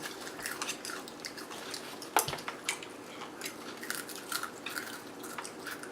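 Chopsticks clicking and tapping against a dish with small eating sounds, scattered short clicks, the sharpest one about two seconds in.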